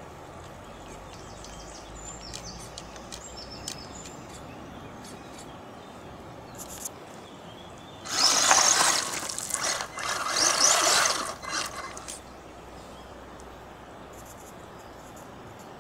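Wltoys 12428-B 1/12 RC crawler driving through a shallow rocky stream: two loud bursts of splashing and churning water, each lasting a second or two, about halfway through. Around them, the stream's steady trickle.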